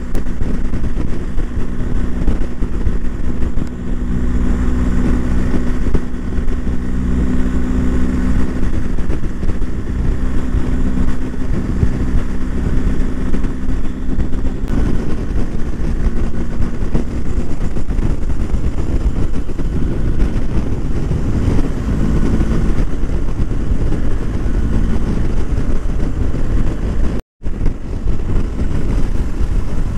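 BMW R1250 GS boxer-twin engine running steadily while the motorcycle is ridden at speed, over a heavy low rumble. The engine note shifts about halfway through, and the sound drops out for a moment near the end.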